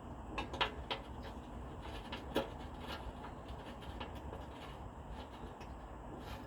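A few light clicks and knocks from handling parts and tools, the sharpest about two and a half seconds in, over a faint steady low hum.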